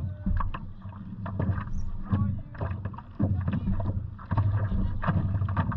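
Water lapping and slapping against a stand-up paddle board right by the microphone: a low rumble broken by irregular slaps and splashes.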